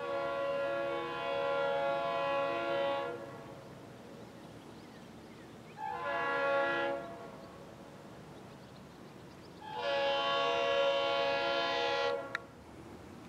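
Multi-note air horn of a KB&S GP38M-2 diesel locomotive sounding for a grade crossing: a long blast, a short blast, then another long blast. This is the end of the standard long-long-short-long crossing signal. A sharp click comes just as the last blast cuts off.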